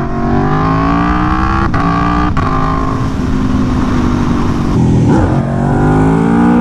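Aprilia Tuono V4 1100 Factory's V4 engine pulling hard in second gear, its rising note broken by two sharp cuts about two seconds in. It then holds a steadier pitch and climbs again near the end. The cuts are wheelie control on level 1 cutting power as the front wheel lifts.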